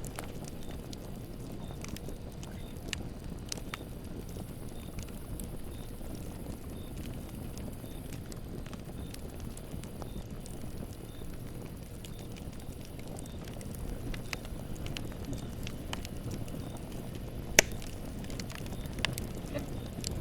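Campfire burning with a steady low rumble and scattered crackles and pops of burning wood, one sharp loud pop late on.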